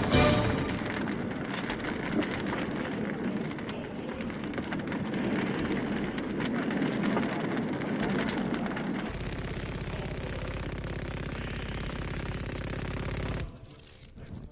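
Rapid, continuous automatic-gunfire rattle. About nine seconds in it turns lower and heavier, then cuts off sharply near the end.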